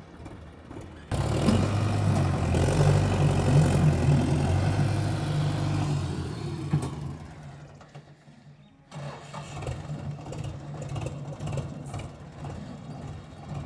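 Belarus tractor's diesel engine labouring under heavy load, pulling a loaded sugarcane trolley through sand. The engine comes in loud and suddenly about a second in, fades away to near silence past the middle, then comes back abruptly at a lower level.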